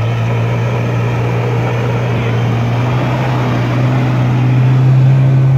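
Suzuki Samurai's engine running hard under load as it climbs through deep snow with its wheels spinning, its pitch and loudness rising a little near the end.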